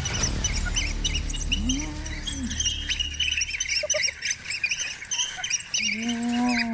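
African wild dog pack twittering: a dense run of short, high, bird-like chirps. Twice a drawn-out low call rises and falls, about a second and a half in and again near the end.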